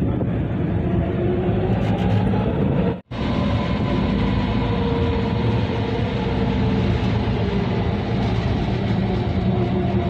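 Steady rumble and low drone of a doli, a small cable car, running along its cable over a river, heard from inside the cabin. The sound drops out for an instant about three seconds in.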